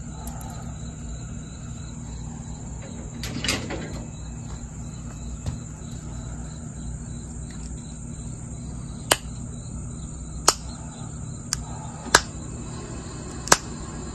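Sharp, short clicks of small jasper flakes snapping off as a metal-tipped pressure flaker is pressed along the edge of a stone point to serrate it. There are five clicks, spaced one to one and a half seconds apart, in the second half, over a steady high insect trill.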